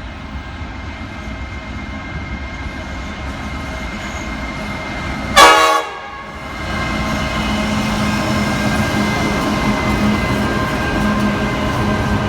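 A train horn sounds one short blast of about half a second over the steady rumble of a train. Afterwards the train noise grows louder, with a steady hum, as the train comes through.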